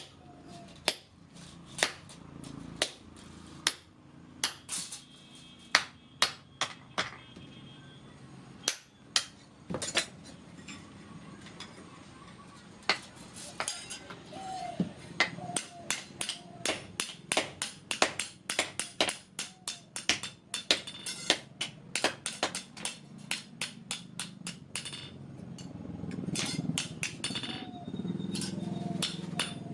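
Hand hammer striking metal on an anvil while forging a spade blade: irregular blows, each with a short ring, coming faster and closer together in the second half.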